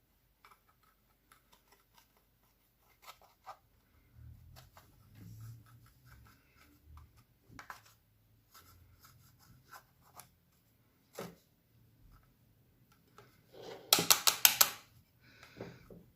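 Clear slime being worked by hand: scattered small clicks and sticky crackles with soft rubbing, then a loud run of rapid clicking pops near the end.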